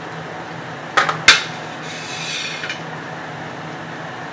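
Two sharp clinks of tableware about a third of a second apart, followed by a short scrape, over a steady low background hum.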